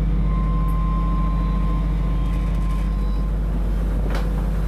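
Fishing boat's engine running steadily, a low hum with no change in speed. A single brief click about four seconds in.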